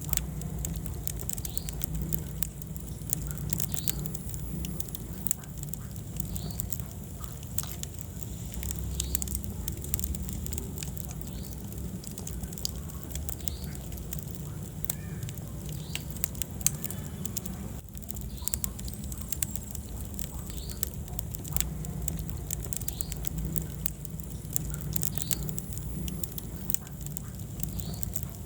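Wood fire burning in a fireplace: a constant low rumble of flames with many small crackles and snaps scattered throughout.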